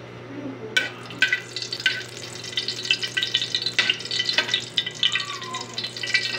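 Oil sizzling and crackling in a hot aluminium wok, starting about a second in, with a metal ladle clinking against the pan several times.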